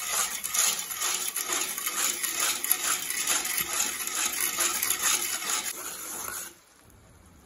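Flat metal spatula clinking and scraping rapidly against an aluminium kadai while stirring boiling sugar syrup, which is being cooked down to one-string consistency. The clinking stops abruptly near the end.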